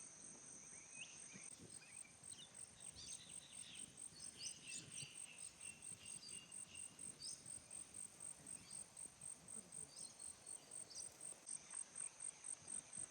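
Faint chorus of insects chirping: a steady, high, evenly pulsing trill, with scattered short higher chirps over it.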